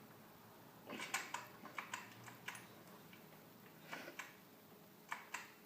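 Short sharp clicks and taps in a few small clusters, from a recoil pull starter being handled and tried on an 80cc two-stroke bicycle engine kit.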